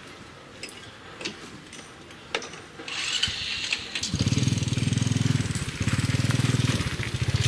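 A small engine starts running about four seconds in, with a rapid, even putter. Before it there are a few sharp clicks.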